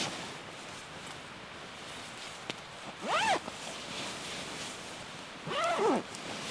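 A zipper pulled in two quick runs, a short one about three seconds in and a longer back-and-forth one near the end, each rising and falling in pitch with the speed of the pull. A single sharp click comes just before the first.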